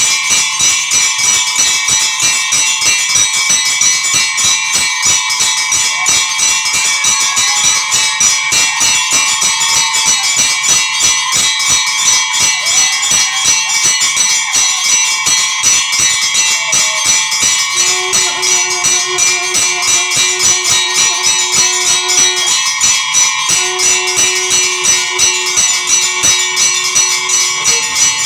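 Temple bells ringing continuously in rapid, even strokes during worship. About two thirds of the way in, a steady low held tone sounds twice, each time for about four seconds.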